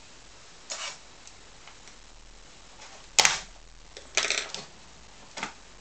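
Plastic case clips of a Samsung NP300E7A laptop clicking as the case is pried apart: a soft scrape about a second in, a sharp snap about three seconds in, then a short rattling crackle and one more click.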